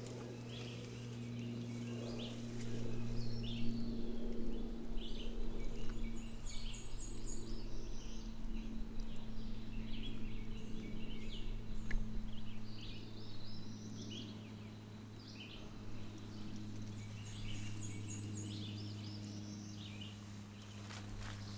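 Songbirds singing, with many short chirps and a couple of quick high trills, over a steady low hum.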